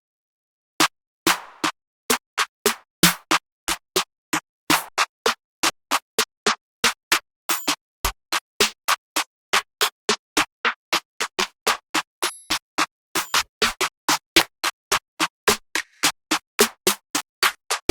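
A run of short trap drum-kit one-shot samples played one after another, about three a second. Each hit stands alone and stops dead into silence before the next.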